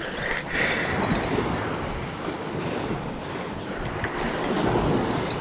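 Sea waves washing against the rocky shore, with wind buffeting the microphone.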